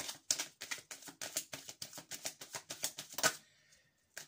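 A deck of tarot cards being shuffled by hand: a quick run of crisp card clicks, about six or seven a second, ending in a sharper snap after about three seconds, then a single click near the end.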